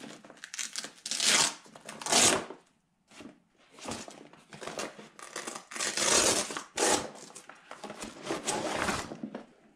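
Packaging and bag material being opened and unpacked by hand: two loud rustling rips in the first couple of seconds, a brief pause, then several seconds of continued rustling and crinkling.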